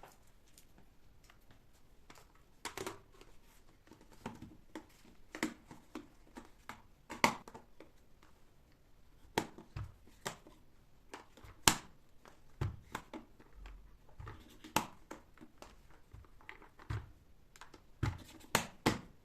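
Irregular light knocks and clicks of household objects being handled and set down, some fifteen to twenty over the stretch, in a quiet small room.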